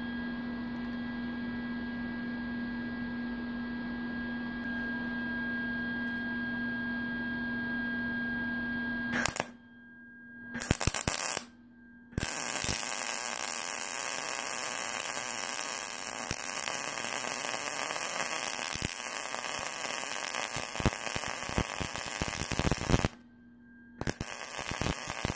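A steady electrical hum for about nine seconds. Then a Lincoln Electric MIG welder's arc crackles in bursts: a short one, a long one of about ten seconds, and another near the end. The welder is tacking a nut onto a snapped bolt stub.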